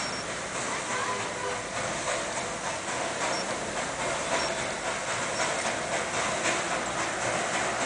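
Darjeeling Himalayan Railway Class B 0-4-0 saddle-tank steam locomotive pulling away from a standstill, its exhaust beating and steam hissing.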